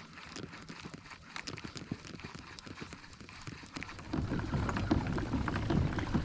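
Kayak pedal drive being pedaled, making irregular small clicks and knocks, with a louder low rumbling noise coming in about four seconds in.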